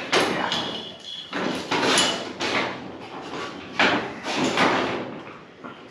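Workshop handling noise: several short bursts of metal scraping and clunking, with a brief high steady squeal early on.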